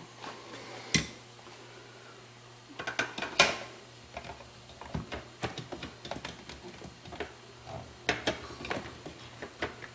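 Plastic clicks and knocks of a wire harness cover being handled and fitted into a Samsung refrigerator's ice maker compartment: one sharp click about a second in, a louder cluster of knocks at about three and a half seconds, then lighter scattered clicks.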